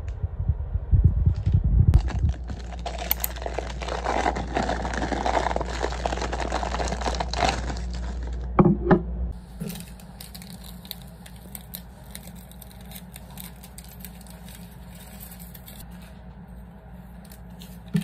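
Paper tea-bag packets crinkling and tearing open, over the low hum of an electric kettle heating that stops about nine and a half seconds in, after a couple of knocks. Lighter rustling and small clicks follow as the tea bags go into ceramic mugs.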